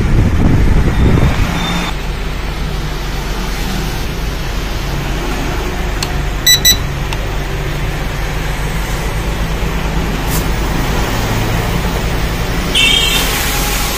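Wind buffeting the microphone, then a steady low hum. About six and a half seconds in, the KS11 drone's handheld remote controller gives two short high beeps as its buttons are pressed. A brief higher-pitched whir comes near the end.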